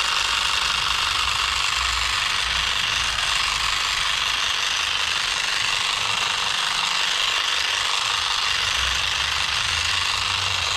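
Hand-held electric grass and shrub shears with the grass-cutting blade fitted, running steadily with a buzzing, rattling blade as they are tried on grass.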